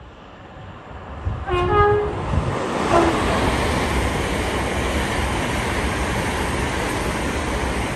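LNER Azuma high-speed train sounding a short two-note horn blast, low then higher, about a second and a half in. It then passes through the station at speed with a loud, steady rush of wheels and air.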